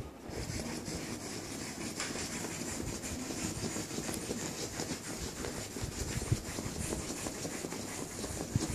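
Miniature schnauzer's front paws scratching rapidly at a bedsheet, a continuous scraping and rustling of fast repeated strokes, with one sharper knock about two-thirds of the way through.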